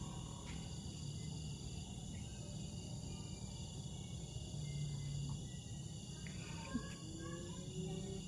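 Steady high-pitched chorus of insects such as crickets over a low hum, with a single brief click about seven seconds in.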